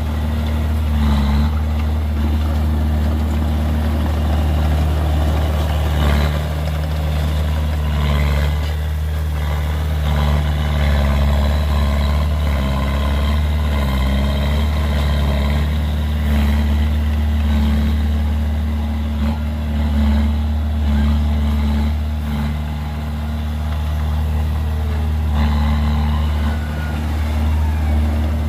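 Komatsu D20A crawler bulldozer's diesel engine running steadily under load as it pushes dirt with its blade, with occasional knocks.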